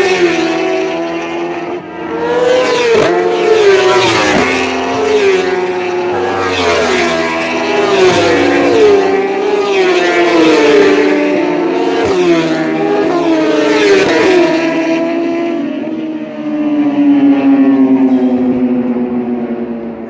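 Superstock racing motorcycles passing one after another at full throttle, each engine note dropping in pitch as it goes by. Near the end one last engine note falls steadily as the bike draws away.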